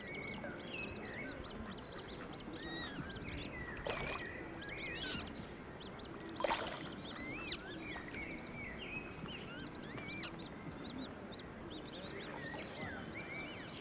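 Ducks calling among a busy chatter of many short, high chirps, with a few louder calls about four and six and a half seconds in.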